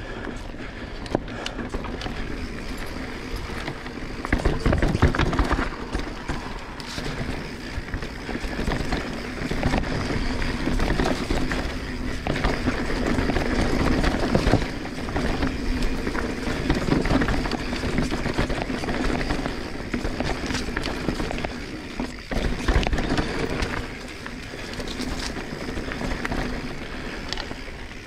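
Transition Sentinel 29er full-suspension mountain bike ridden along a dirt trail: steady tyre rumble over the ground with frequent knocks and rattles from the bike, getting louder and softer as the terrain changes.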